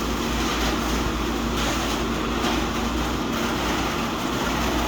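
Fire engine's engine and water pump running steadily: a constant low rumble with a steady hum over it.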